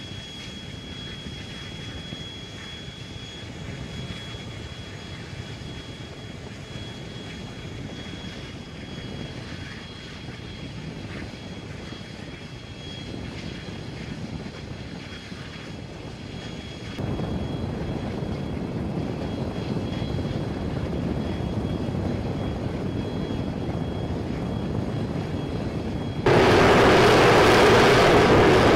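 Jet engine noise on an aircraft carrier flight deck, with a steady high whine. The noise jumps up suddenly about 17 seconds in, then again, much louder, about 26 seconds in.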